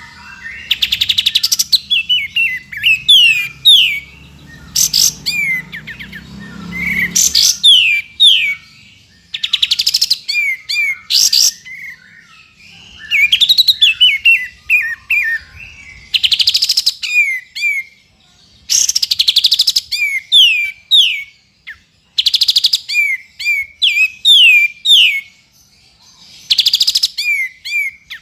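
Kapas tembak bulbul singing: repeated phrases of quick, falling whistled notes broken up by rapid, high buzzy trills, a new phrase every couple of seconds with short pauses between.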